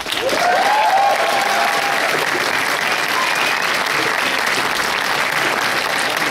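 Audience applauding, breaking out suddenly and holding steady, with a couple of cheers near the start.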